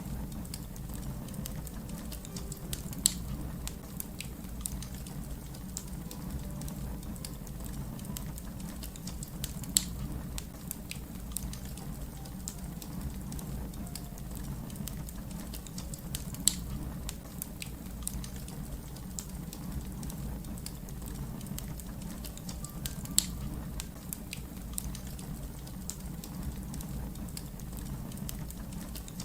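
Wood fire crackling: a steady low rumble of burning with constant small crackles and four sharper pops spaced several seconds apart.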